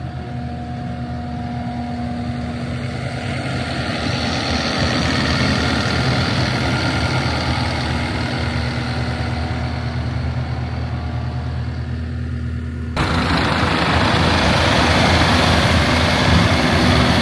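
Takeuchi TL12 V2 compact track loader running with a steady diesel hum under a heavy rush of noise that builds from about four seconds in, typical of the high-flow hydraulic grinding attachment working. About thirteen seconds in the sound jumps suddenly louder and brighter.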